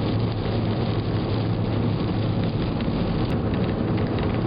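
Steady road and engine noise heard from inside a car's cabin at freeway speed, with a constant low hum and rain hitting the windshield.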